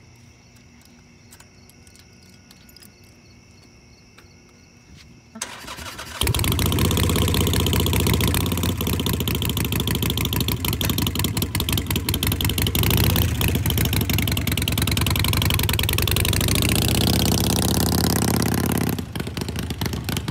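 Harley-Davidson Sportster Iron 883 air-cooled V-twin with Vance & Hines Short Shots exhaust being started: the starter cranks about five seconds in and the engine fires a second later, then runs loud. Near the end it revs up and the sound drops off as the bike pulls away.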